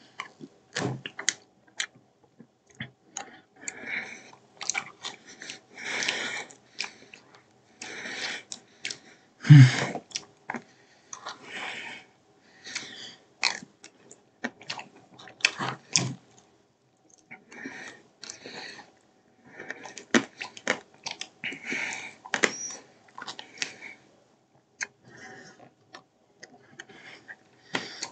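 Mouth sounds of someone eating ice cream off a spoon, in short stop-start bursts with sharp clicks among them. A louder, deeper thump about nine and a half seconds in.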